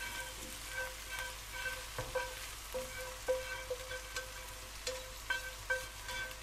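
Spiced fish pieces frying in oil in a pot: a steady sizzle with scattered small crackles and taps as fried fenugreek and coriander are tipped in from a frying pan. Soft background music with a repeated plucked note sits under the sizzle.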